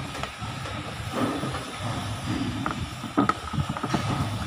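Steady low rumble and hiss of background noise, with a few light clicks and knocks as multimeter test probes are picked up and handled.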